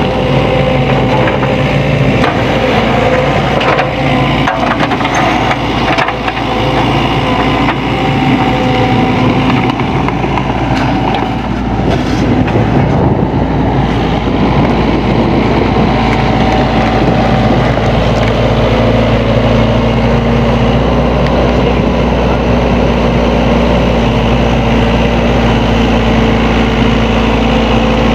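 SANY SY75C mini excavator's diesel engine running steadily while it works, with clanks and scrapes through the first half, then a steadier run.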